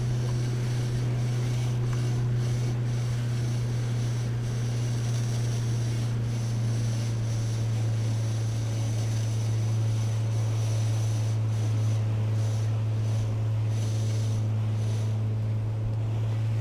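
Outboard motor pushing a fishing boat, running at a steady speed with an even low drone that never changes in pitch or level.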